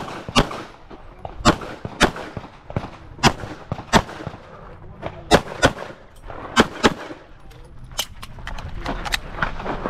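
Pistol shots fired in quick pairs, about a third of a second apart, with roughly a second between pairs: a competition stage being shot, typically two shots per target.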